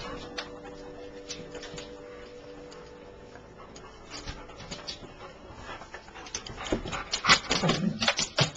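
Pet dog (German Shorthaired Pointer) whimpering, then a quick run of clicks and knocks from about six seconds in, loudest near the end.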